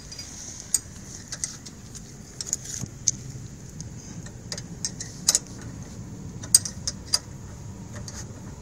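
Irregular metallic clicks and clinks of hand tools working on a car's rear brake caliper, over a low steady background hum.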